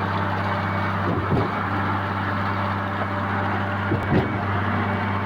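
Concrete pump's engine running steadily, with a dull thud about a second in and another about four seconds in.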